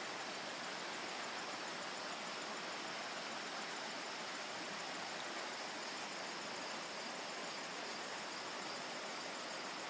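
Steady rush of a shallow, rocky woodland stream, with a constant high-pitched chirring of insects over it.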